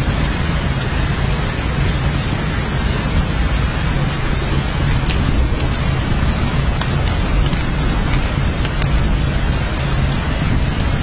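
Steady heavy rain with scattered sharp drop ticks over a constant low rumble.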